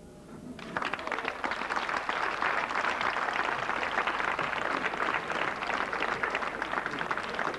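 Audience applauding: many hands clapping, starting abruptly about a second in and going on at an even level.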